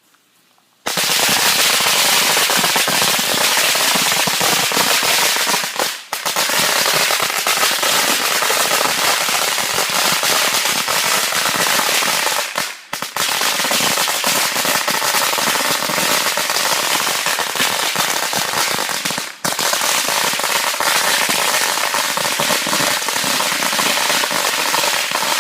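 A string of 2000 firecrackers going off in a dense, continuous rapid crackle of bangs for about 24 seconds, starting about a second in, with three brief lulls along the way before it stops.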